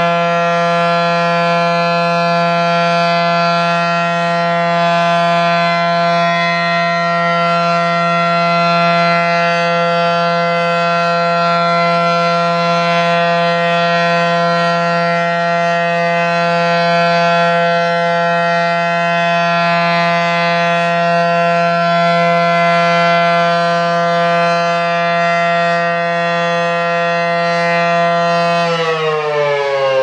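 Federal Signal SD-10 outdoor warning siren sounding its steady alert tone, loud and held at one pitch. Near the end the pitch begins to drop as the siren winds down out of the alert signal.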